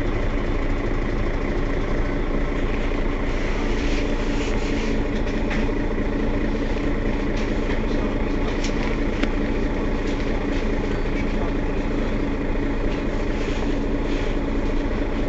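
Mercedes-Benz Citaro facelift city bus standing at a stop with its engine idling steadily, with a few short clicks over the hum.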